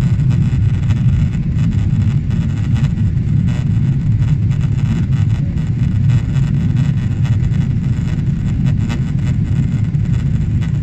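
Steady, loud low rumble inside the cabin of a Boeing 777-300ER climbing out after takeoff: its GE90-115B turbofan engines at climb power, together with air rushing past the fuselage.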